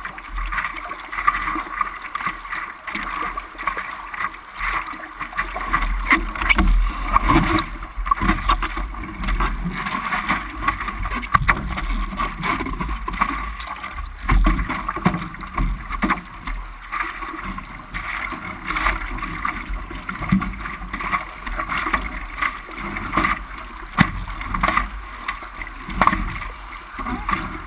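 Sea water sloshing and splashing in an irregular, continuous wash, with a fluctuating low rumble of wind on the microphone.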